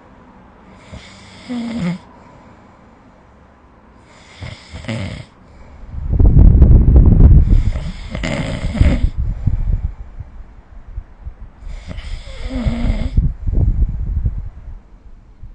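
A sleeping person snoring, with breaths coming about every four seconds. From about six seconds in there is a long, loud, low snore lasting roughly three seconds, followed by softer snores.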